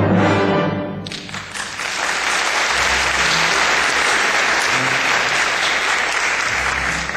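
Orchestral ballet music breaks off about a second in, and a theatre audience applauds, tapering off near the end.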